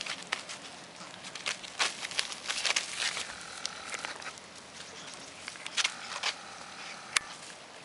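Dogs' paws scuffing and scrabbling on a straw beach mat and loose gravel as a Shetland sheepdog puppy and an adult Sheltie play-fight, in irregular clicks and rustles. There is one sharp click near the end.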